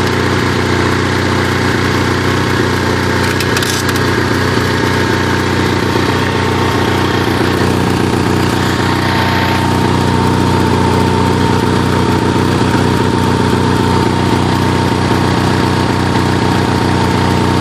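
Onan NH 6.5 kW generator's gasoline engine running at a steady speed, a constant hum with a thin whine on top.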